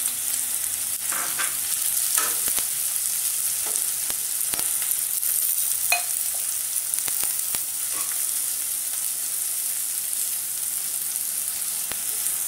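Chopped spinach sizzling steadily as it fries in a hot tempering of cumin, asafoetida, ginger, green chilli and garlic in a metal kadhai. A steel ladle stirs it, with scattered scrapes and clicks against the pan and one ringing clink about six seconds in.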